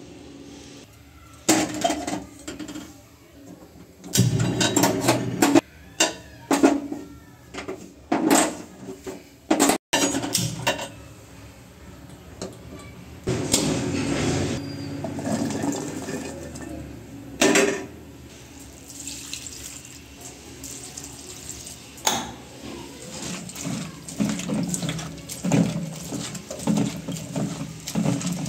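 Tap water running and splashing at a kitchen sink, with repeated sharp knocks and clatter of utensils.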